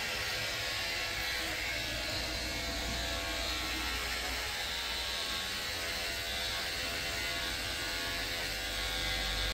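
Electric hair clippers running steadily during a haircut.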